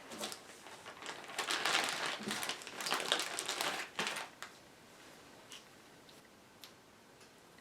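Rustling, crinkling handling noise as the second coat of shellac is worked onto the wood, in uneven bursts for about four and a half seconds, then only a few faint ticks.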